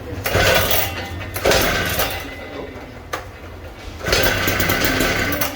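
Husqvarna two-stroke concrete saw running, with a steady low engine hum under three loud surges of noise each about a second long, two close together at the start and a longer one near the end.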